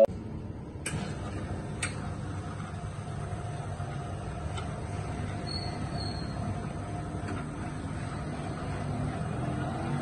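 Two-group espresso machine running with a steady low hum and rumble, with two light clicks about one and two seconds in.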